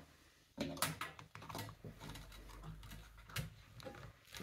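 Hands handling a metal watercolour paint palette: a few light clicks and taps, with the sharpest about a second in and again about three and a half seconds in.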